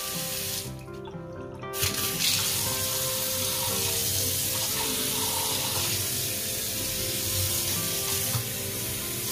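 Water running from a newly fitted kitchen mixer tap into a stainless steel sink, run to purge air from the new supply hoses. The flow falls off for about a second near the start, then comes back full and runs steadily.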